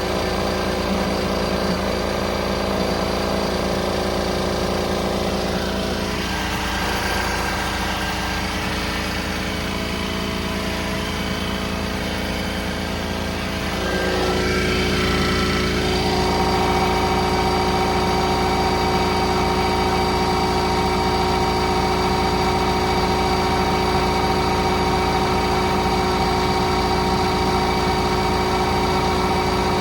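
Toyota diesel engine running steadily, heard from under the engine bay, where a rattle is being traced. It grows louder about halfway through.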